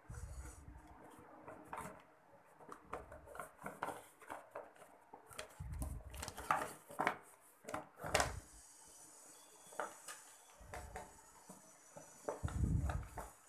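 A cardboard box being handled and opened by hand: a run of scrapes, taps and rustles of cardboard and packaging, with a few low thumps, the loudest near the middle and near the end.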